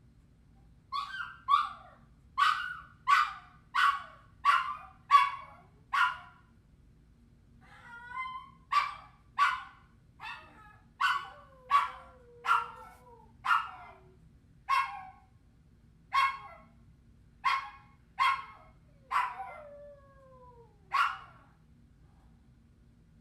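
Dog whining in short, sharp yelps, one or two a second, in two bouts with a brief pause after about six seconds. A few drawn-out falling whimpers sound between the yelps in the second bout.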